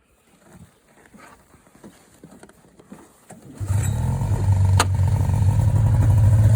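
Fan-cooled two-stroke engine of an Arctic Cat Puma snowmobile starting up about halfway through and settling into a steady idle, with a single sharp click shortly after it catches.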